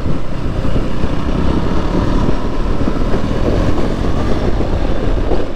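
Riding sound of a KTM Duke motorcycle: the single-cylinder engine running under a loud, steady rush of wind noise on the rider's microphone.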